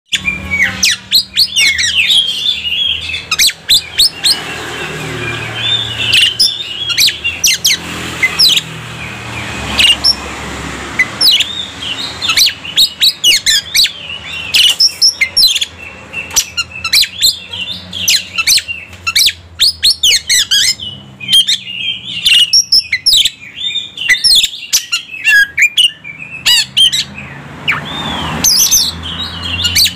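Oriental magpie-robin (kacer) in full song: a continuous, varied run of loud, sharp whistles, chirps and quick rough notes, including mimicked calls of other birds.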